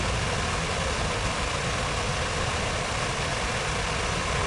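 Steady city ambience: an even, continuous wash of fountain water over a low rumble of traffic.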